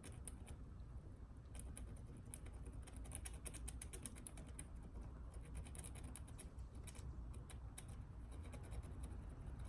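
Faint, irregular scratching and ticking of a touch-up paint pen's tip dabbed and drawn along the curb-rashed edge of a Tesla Model 3 wheel rim, filling in the gouges, over a low steady rumble.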